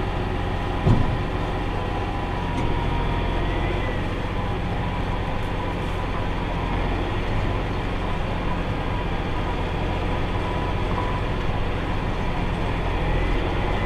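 Farm tractor running steadily while pulling a round hay baler at work, with one knock about a second in.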